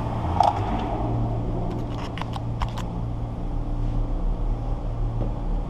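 Windshield removal wire-cut tool being worked through the urethane: a ratchet clicks a handful of times in quick succession over a steady low hum.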